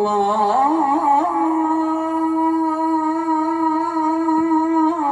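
A man chanting the sela, the Turkish Islamic salutation to the Prophet, through loudspeakers. He sings one long melismatic note that turns and wavers for about a second, then holds steady for about four seconds before turning again near the end.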